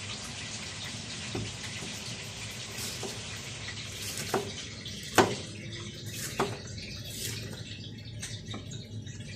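A kitchen knife cutting bell peppers on a plastic cutting board, with a handful of sharp knocks of the blade on the board, the loudest about five seconds in, over a steady background hiss.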